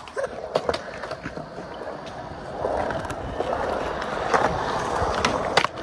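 Skateboard rolling on a concrete skatepark surface: a few sharp knocks of the board and trucks on the coping in the first second, then a steady rolling rumble of the wheels that grows louder about two and a half seconds in, with several sharp clacks of the board near the end.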